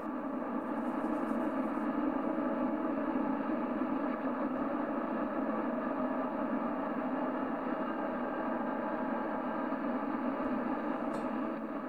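Steady radio static: an even hiss with no tones or voices, thin and band-limited like a receiver's speaker audio.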